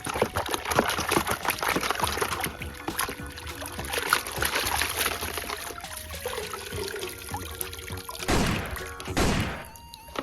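Water pouring and trickling with background music, ending in two short rushing sounds about a second apart.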